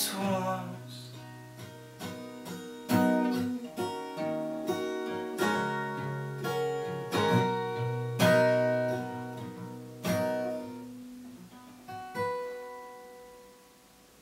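Acoustic guitar playing the closing chords of a song, one chord or note at a time, each left to ring. The strikes come further apart, and the last one, about twelve seconds in, dies away to near silence.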